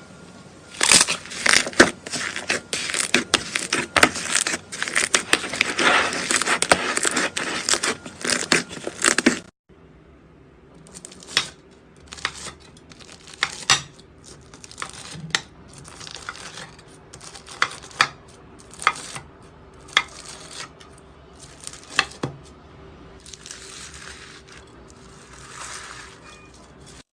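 Crunchy slime being squeezed and pressed by hand, crackling densely for about nine seconds; after a sudden cut it gives single sharp crunchy pops about once a second, with some softer crinkling between them.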